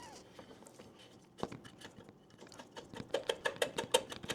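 Light clicking from a wing nut being unscrewed by hand off the air cleaner cover stud of a Kohler engine: one click about a second and a half in, then a quick run of light clicks, about eight a second, in the second half.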